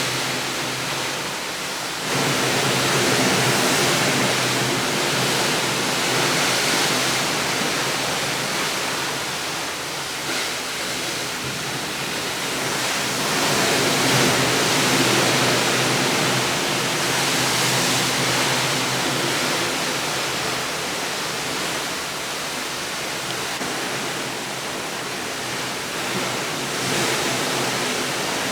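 Steady rushing water, a dense even hiss that swells and eases slowly over several seconds, stepping up about two seconds in.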